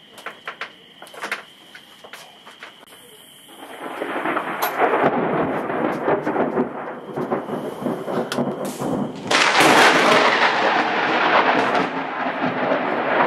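Thunder from a nearby lightning strike, rolling and crackling, starting up about four seconds in and growing louder near ten seconds, preceded by a few sharp cracks.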